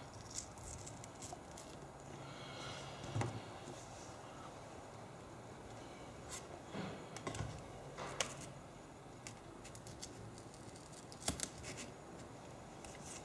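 Adhesive under an iPad 2's digitizer glass popping as the heated glass is pried up with plastic picks and a spudger: scattered small clicks and crackles, a few sharper snaps among them.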